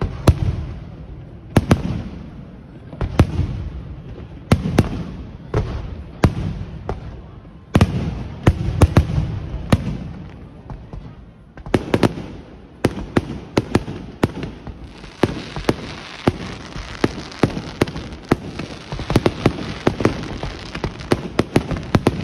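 Fireworks exploding overhead: sharp bangs about every one to two seconds, each followed by a low rumbling boom. From about two-thirds in, a dense fizzing crackle of crackler shells fills the gaps between the bangs.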